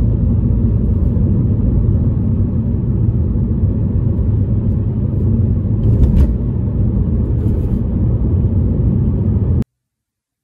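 A car travelling along a road: a loud, steady low noise of tyres and engine that cuts off abruptly near the end.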